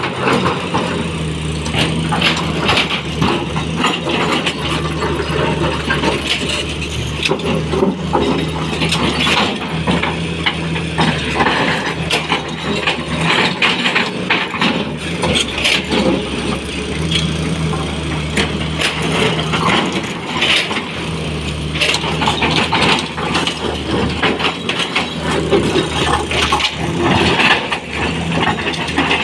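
Sany 240 excavator's diesel engine running under working load, its note dropping and rising again every few seconds as the hydraulics work. Stones knock and clatter against the steel bucket throughout.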